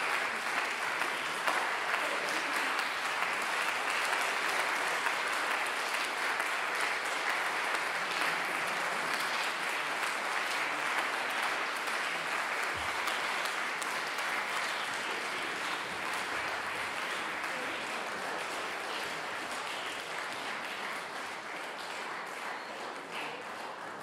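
Concert audience applauding steadily, the clapping slowly dying down toward the end.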